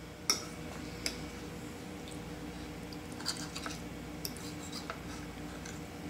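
Metal fork cutting into soft lasagna on a ceramic plate, with a few light clicks and scrapes of the fork against the plate.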